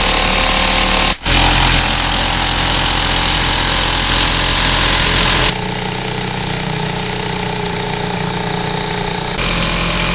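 Small 5 hp Gamefisher outboard motor on a dinghy running steadily under way, with rushing wind and water noise. The sound breaks off for an instant about a second in and drops in level a little after halfway, then comes back up near the end.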